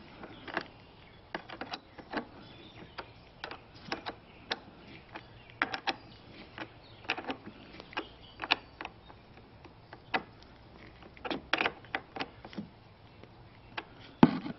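Irregular light metallic clicks and taps as a battery cable clamp is refitted and tightened onto its terminal post.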